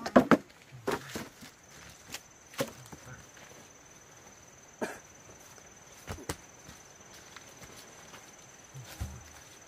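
Sharp, irregular wooden knocks and cracks: several in quick succession at the start, then single strokes spaced a second or more apart.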